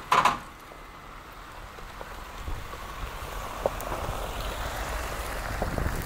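A pickup truck creeping over a snow-covered road on a tow strap: a hiss of tyres on snow and a low engine rumble that grow louder over the last few seconds. A short loud sound comes right at the start.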